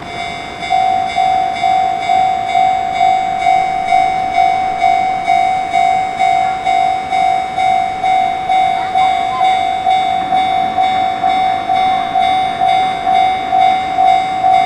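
Japanese railway level crossing's electronic warning bell ringing in a steady, even rhythm of about three strokes a second, starting about half a second in. It is the signal that a train is approaching and the crossing is closing.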